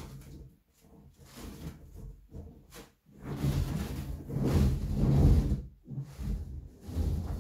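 Inflated vinyl exercise balls, a silver Tunturi ball stacked on a blue one, rubbing against each other and against clothing and hands as a person leans and climbs onto them. The rubbing grows after about three seconds and is loudest just before a brief dip near the end.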